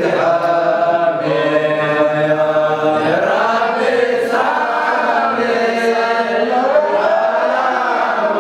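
A group of young men chanting an Islamic dhikr together in unison, unaccompanied male voices sustaining a continuous, undulating melodic line.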